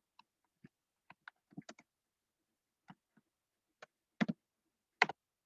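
Irregular key clicks on a computer keyboard, sparse and light, with two sharper strokes near the end.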